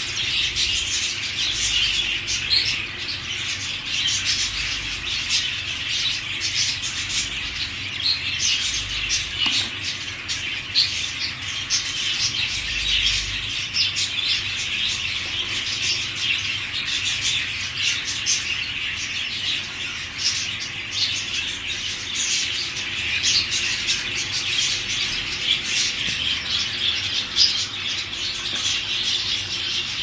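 Budgerigars chirping, chattering and squawking without a break, a busy stream of quick high chirps.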